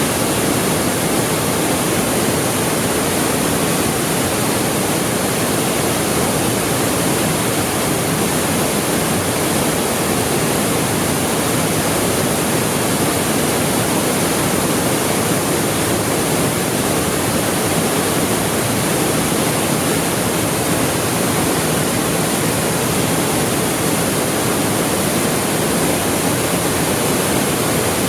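Waterfall plunging into its pool, a loud, steady rush of falling water.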